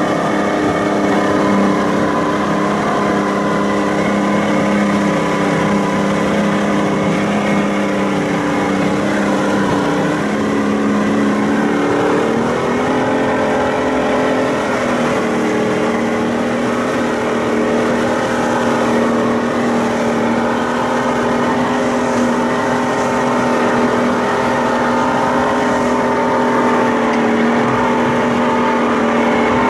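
Speedboat engine running steadily at speed over the rush of its churning wake. Its pitch steps up a little about twelve seconds in.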